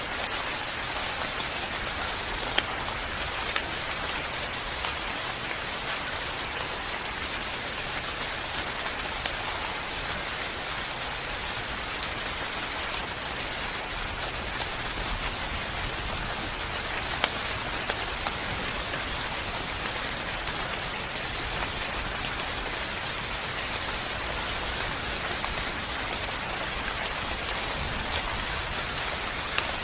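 Steady rain falling, an even hiss with scattered louder drop hits, a few of them standing out sharply.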